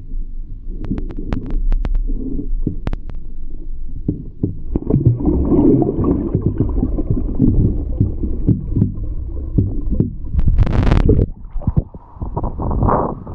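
Muffled churning and gurgling of water heard through a camera held underwater, with scattered small knocks. About eleven seconds in, a short splash comes as the camera breaks the surface.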